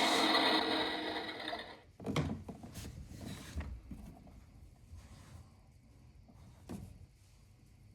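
A Miele Novotronic W377 washing machine's motor or pump hums steadily, then stops abruptly about two seconds in. After that come a few scattered knocks and clicks from the machine.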